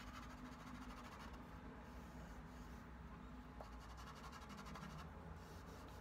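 Dry pastel stick rubbing and scratching faintly on paper.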